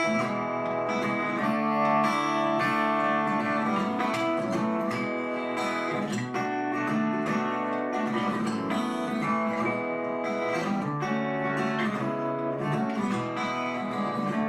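Acoustic guitar playing the instrumental introduction to a country song, a steady run of chords with new notes struck every second or so.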